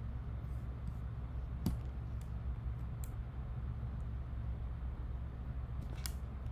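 A handful of sharp, scattered computer mouse clicks, the loudest about six seconds in, over a steady low hum.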